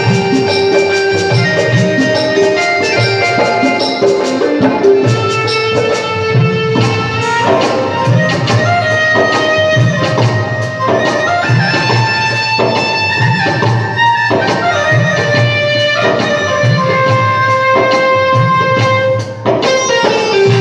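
Instrumental Indian devotional tune: a melody of held notes moving step by step over a steady hand-drum beat, played during a sound check.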